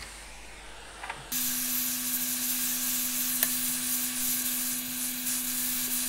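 Hot air gun blowing, a steady hiss of air over a low steady hum, starting abruptly about a second in. It is heating the pins of a USB flash drive's NAND flash chip to melt the solder and lift the chip off the board.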